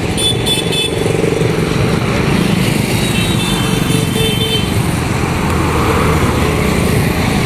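Steady engine and road noise of a moving vehicle heard from on board: a continuous low engine hum under a rushing noise.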